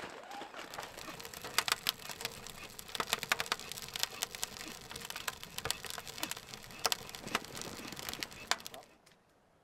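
Split logs burning in a steel wood stove with its door open, crackling with irregular sharp pops of varying loudness. The crackling cuts off abruptly near the end.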